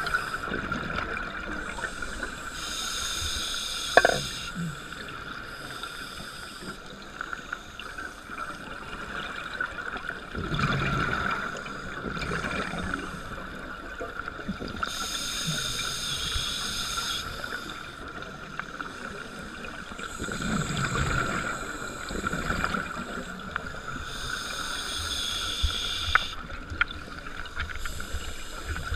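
Scuba regulator breathing, heard through an underwater camera housing. Three hissing, bubbling exhalations come about ten seconds apart, with softer inhalations between them, over a steady faint high hum.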